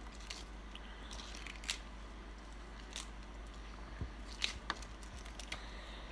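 Raw cabbage leaves being pinched and torn apart by hand over a pot of soup: a few faint, crisp snaps and crunches, scattered irregularly.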